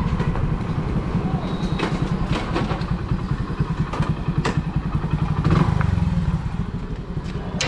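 Hero Splendor motorcycle's single-cylinder four-stroke engine running at low speed, pulsing steadily, briefly louder about five and a half seconds in. Several sharp clicks and knocks sound over it.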